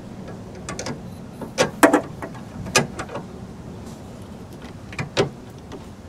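Several sharp metallic clicks and taps, the loudest about two seconds in, as the A/C valve core replacement tool is fitted and threaded onto the truck's A/C service port, over a steady low hum.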